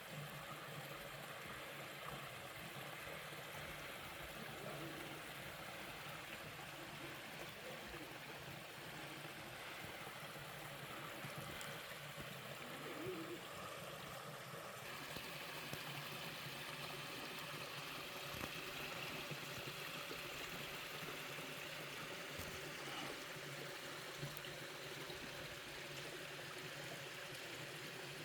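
Waterfall and mountain-stream water running steadily over rocks. About halfway through the sound shifts to a brighter, more splashing tone.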